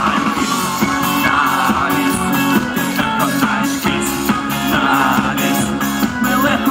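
Live pop-rock band playing through a PA: drums keeping a steady beat under bass, electric guitars and keyboard, heard from among the crowd.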